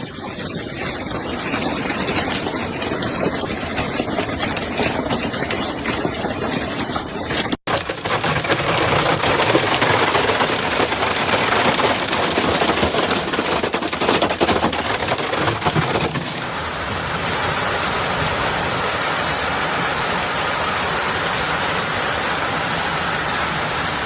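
Heavy hail and rain pelting down in a dense, rapid rattle of impacts, in three stretches split by abrupt cuts.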